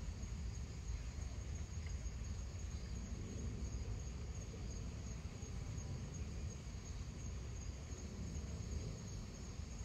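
Steady outdoor ambience: a continuous high insect trill over a low, even rumble.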